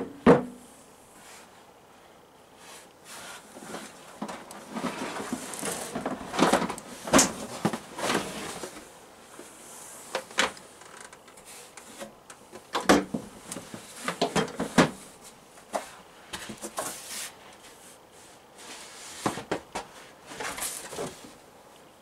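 Hollow plastic parts of a Hunter 32500 evaporative humidifier being handled, lifted apart and set down on a workbench: a sharp double clack at the start, then scattered knocks, clicks and rubs.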